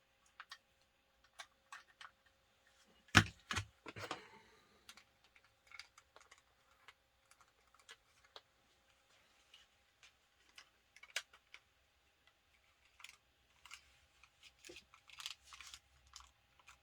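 Scattered plastic clicks and knocks from handling a network cable tester and snapping BNC coaxial connectors into place, with a louder cluster of knocks about three seconds in. A faint steady tone sits underneath.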